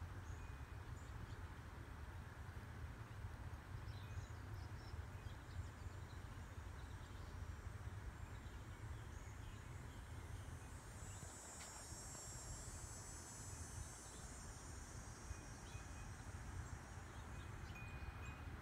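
Faint outdoor background noise: a steady low rumble and hiss, with a few tiny ticks, and a high, thin hissing sound that swells in about halfway through and fades out some seconds later.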